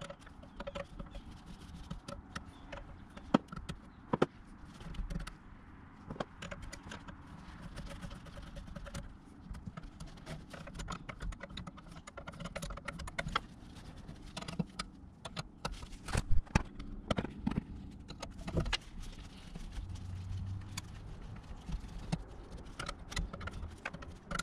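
Hand tools and metal parts clicking and clinking irregularly as an ABS pump unit is worked loose and removed from a car's engine bay.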